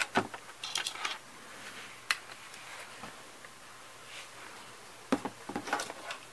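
Hard plastic toy pieces clicking and clattering as they are handled, in a few separate clicks and short bursts with quiet in between.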